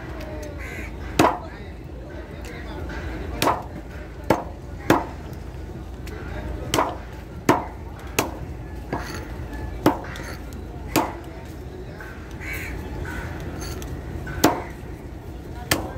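Heavy axe-like cleaver chopping snapper into pieces on a wooden log chopping block: about a dozen sharp chops at an uneven pace, with short pauses between them.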